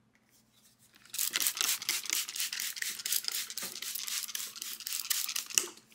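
A cloth rubbed quickly back and forth over the faces of curly redwood boards, a dense scuffing wipe that starts about a second in and stops just before the end.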